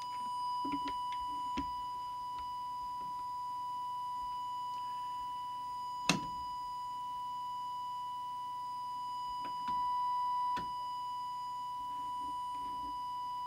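Steady 1 kHz test tone from an audio oscillator, used to drive the CB transmitter for setting its audio deviation. A single sharp click about six seconds in, and the tone gets a little louder for about a second near the ten-second mark.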